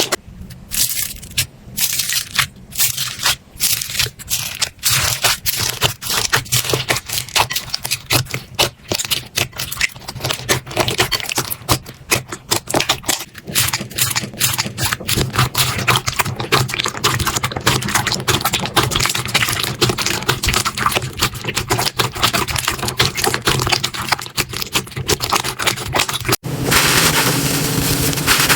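Slime being squeezed and pressed, a rapid irregular run of crackling, popping clicks. About 26 seconds in an abrupt cut switches to a denser, steadier crackle.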